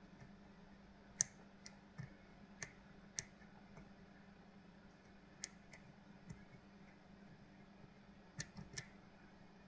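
Faint, sharp metallic clicks of lock picks working the pins inside a Kale Kilit 164 BNE lock cylinder, about ten at irregular intervals with a quick cluster of three near the end.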